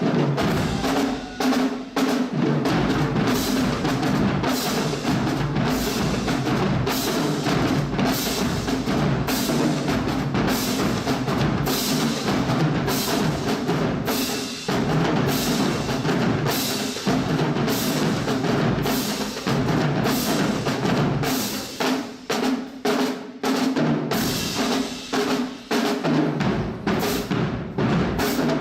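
Drums playing a fast, busy rhythm of rapid strokes, thinning out with short gaps a little over three-quarters of the way through.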